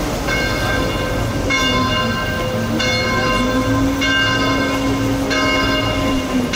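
Church bells ringing across the water, about one stroke every second and a quarter, each stroke ringing on until the next. Under them runs the steady low hum of the vaporetto water bus's engine.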